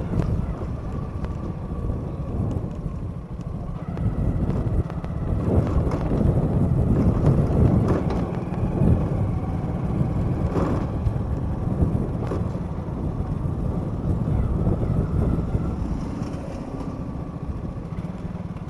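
Motorcycle being ridden: steady engine and road noise, with a few sharp knocks along the way.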